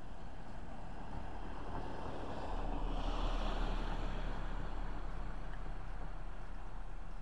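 Wind rushing over the microphone, a steady rumble that swells in a gust about three seconds in and then eases.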